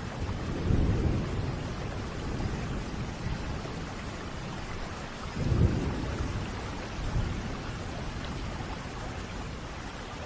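Steady rain falling, with low rumbles of thunder rising and fading about a second in and again, strongest, just before six seconds.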